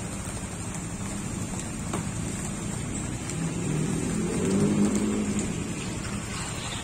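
Motorbike engine running, swelling louder for a couple of seconds in the middle as it revs, with rain falling.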